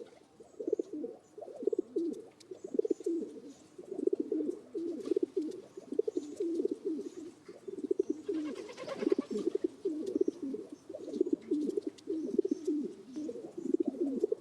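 Pigeons cooing, several calls overlapping almost continuously. A brief rustle comes about nine seconds in.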